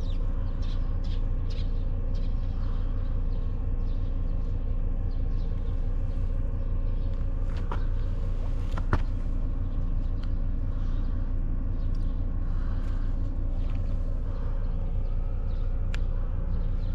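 An engine running steadily, a constant low rumble with a few short sharp clicks and taps over it.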